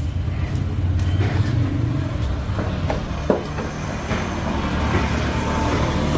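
A steady low mechanical rumble, with a few light clicks and knocks over it, the sharpest about three seconds in.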